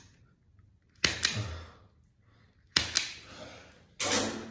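Hand wire stripper clamping and pulling insulation off cable cores: three sharp clicks, each fading over about half a second.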